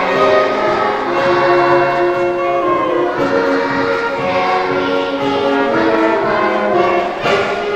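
Music: a piece of held notes and chords changing about once a second, with no speech.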